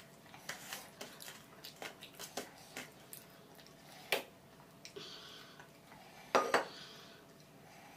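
Fingers mixing rice on a stainless steel plate, with soft scattered clicks of food and nails on the metal. Near the end a small steel bowl clinks twice against the plate as curry is poured onto the rice.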